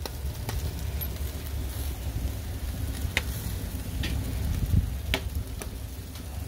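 Meat sizzling on a parrilla grill over wood embers, with a few sharp crackles and pops scattered through, over a low rumble of wind on the microphone.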